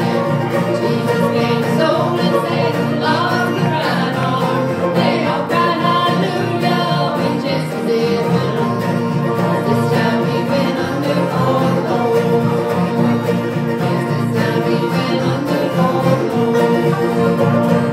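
A live bluegrass band playing acoustic guitars and other plucked string instruments while several voices sing together.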